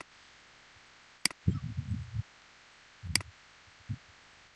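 Three sharp plastic clicks spaced a second or two apart, like computer clicks at a desk, with low muffled rumbles close to the microphone between the first two.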